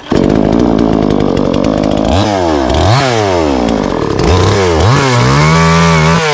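Petrol chainsaw engine running loud, starting abruptly at high speed, then revved up and down repeatedly about once a second, held high briefly before dropping back near the end.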